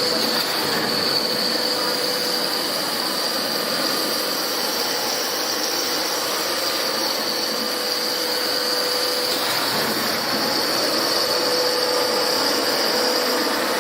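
Refrigerator door gasket production line machinery running steadily: a continuous mechanical noise with a steady high whine over a lower hum.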